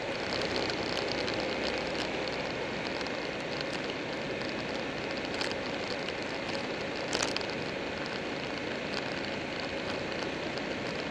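Riding on a Buell 1125R sport bike: steady wind rush on the microphone over the engine and tyre roar. A couple of short clicks about five and seven seconds in, the one near seven seconds the loudest.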